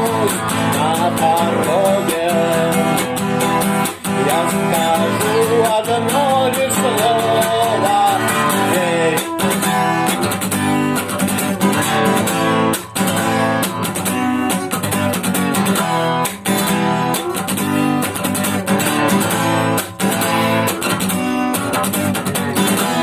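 Instrumental section of a rock song: guitars, bass and a steady drum beat, with a wavering lead melody over the first several seconds and no vocals.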